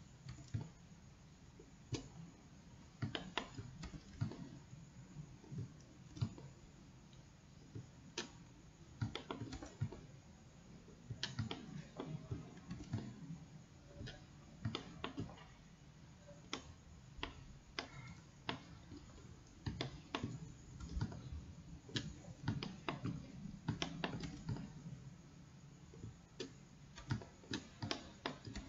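Irregular clicks of a computer mouse and keyboard, single and in quick clusters, over a faint low hum.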